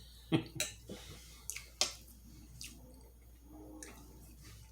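Close-up wet chewing and mouth sounds of a person eating, with several short sharp smacks and clicks in the first couple of seconds.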